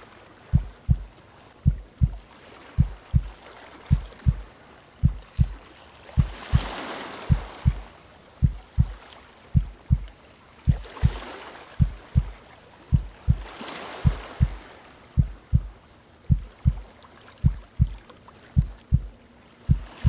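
Deep heartbeat sound effect: slow, steady double thumps (lub-dub), a little under one beat a second, over the soft hiss of calm ocean waves that swell and wash out every few seconds.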